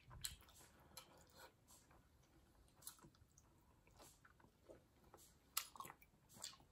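Quiet chewing and wet mouth sounds of people eating steamed momo dumplings, with scattered small clicks and smacks and a few louder ones near the end.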